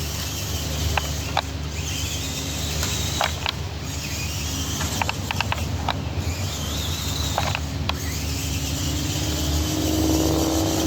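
A toy-grade RC crawler car's small electric motor and gears whining in spurts, rising and falling, with scattered clicks and rattles as it bounces along. A steady low hum runs underneath, and a lower droning tone comes in near the end.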